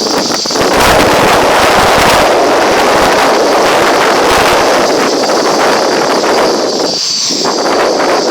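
Heavy wind buffeting the microphone: a loud, rough rush with crackling gusts. Behind it runs a thin, steady high whine from the quadcopter's motors and propellers, briefly stronger about seven seconds in.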